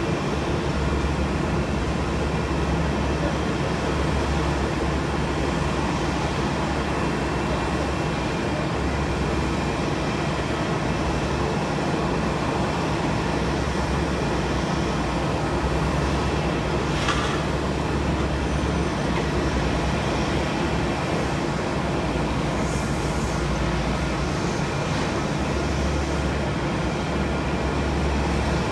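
Steady rumble and hiss of a JAL jet airliner with its engines running, level throughout, with one short sharp sound about 17 seconds in.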